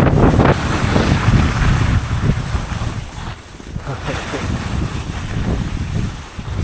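Strong gusting wind, over 40 mph, buffeting the microphone with a loud low rumble. It is heaviest in the first couple of seconds, eases about three seconds in, then picks up again.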